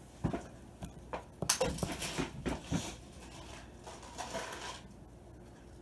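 Light handling noise: scattered soft knocks and clicks, busiest between about one and a half and three seconds in, then a brief soft rustle.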